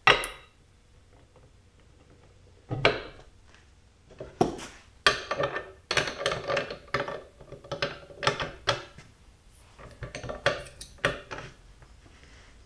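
Metallic clinks and clanks of a socket, long breaker bar and digital torque adapter being fitted onto bolts in a steel plate and levered to break them free for a torque reading. A single clink at the start, a short pause, then a quick run of clinks through the middle.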